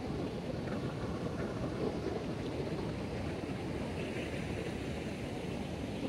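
Steady low rumble of wind buffeting a phone's microphone on an open beach.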